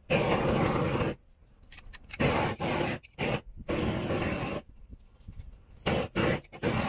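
Roofer working torch-on bitumen membrane flashing with a propane torch: repeated bursts of harsh rushing, scraping noise, each about a second long or less, five times with short pauses between.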